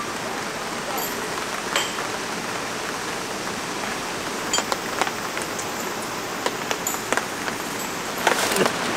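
Steady rain falling, an even hiss, with a few sharp taps here and there, the loudest near the end.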